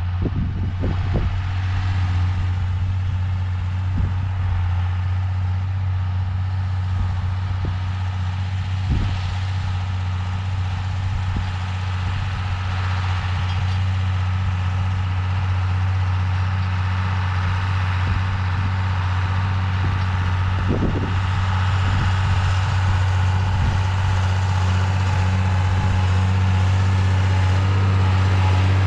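John Deere tractor's diesel engine working under load as it pulls an Opico Vari Disc harrow through compacted, flood-damaged soil. The sound grows steadily louder as the tractor comes closer.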